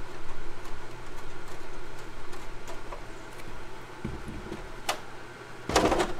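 Light clicks and handling noises as hands work small screws and nuts into a plastic RC car body and wing, over a steady low hum. Near the end comes a louder clatter as the plastic body is lifted and turned around on the bench mat.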